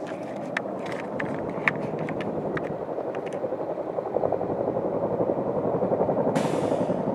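Tandem-rotor Chinook helicopter approaching, its rotors beating in a fast, even throb that grows steadily louder. A brief rush of hiss comes near the end.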